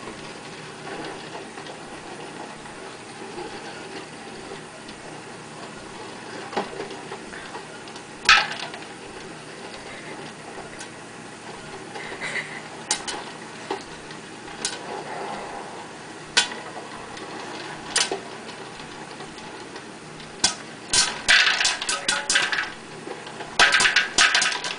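Popcorn popping inside an electric popcorn popper with a clear plastic dome, over the machine's steady low noise. There are a few single pops at first, then a rapid flurry of pops against the dome near the end.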